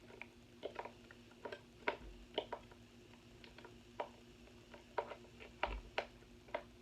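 Irregular small plastic clicks and taps, about twenty in a few seconds, from handling a RadioShack 12-991 weather radio while fitting its batteries or pressing its buttons.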